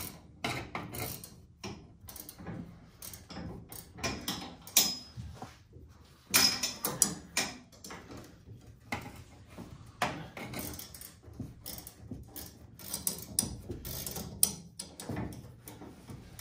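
Hand tools clicking and clinking as a wrench works the bolt on a race car's throttle linkage rod, with irregular short knocks and rattles of metal parts.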